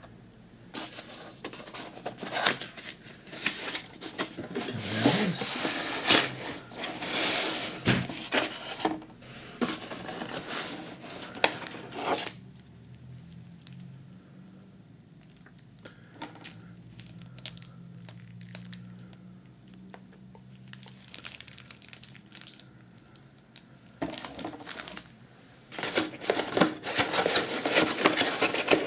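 Plastic wrap crinkling and cardboard packaging rustling and knocking as a tablet is unpacked from its box. The handling comes in busy spells, with a quieter stretch in the middle.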